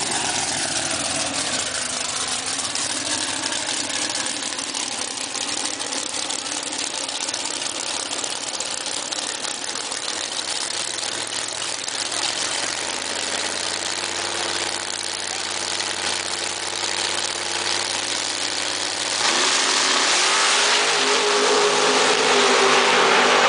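Two drag-racing cars' engines running at the starting line, then launching at full throttle about 19 seconds in, with a sudden jump in pitch and loudness that holds as they run down the strip.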